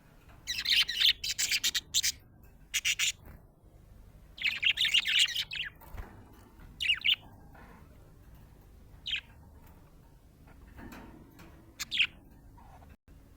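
Pet budgerigar chirping, the chirping of a happy budgie: two runs of rapid high chirps in the first six seconds, then a few short chirps spaced a couple of seconds apart.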